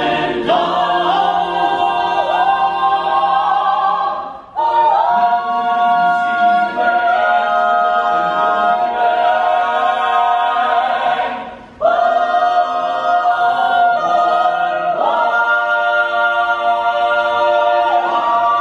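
Mixed-voice a cappella ensemble, men and women, singing sustained chords in close harmony, broken by two short breaths about four and twelve seconds in.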